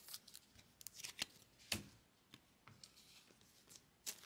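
Trading cards being slid into soft plastic penny sleeves and a rigid plastic toploader: faint plastic rustling with scattered small clicks, the sharpest about two seconds in.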